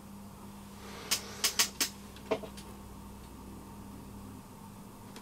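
Sharp clicks and light taps of small tools or test gear being handled, about six of them clustered over a second and a half, over a steady low electrical hum.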